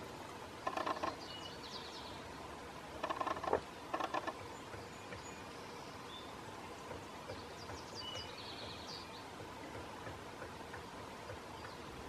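Pileated woodpecker pecking and prying at a rotting stump while digging out grubs: three short bursts of rapid knocks in the first half. Faint songbird chirps in the background.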